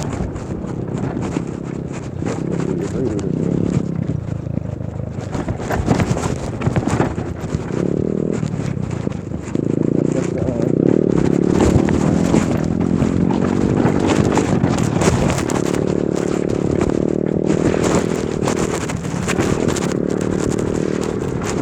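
Custom electric moto (e-bike) being ridden: a motor whine that shifts in pitch as the speed changes, with rattles and knocks from the bike going over rough ground, and wind on the microphone.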